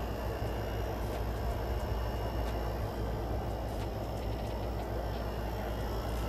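A steady low rumble with an even hiss over it, unchanging throughout, with no distinct sounds standing out.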